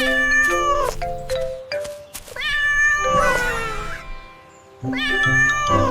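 Domestic cat meowing three times, about two seconds apart, over a light background tune.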